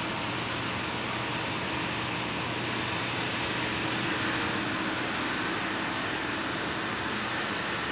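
EKO 175 electric nut roasting machine running: a steady mechanical hum and hiss from its motor and fans, with a thin, steady high-pitched whine.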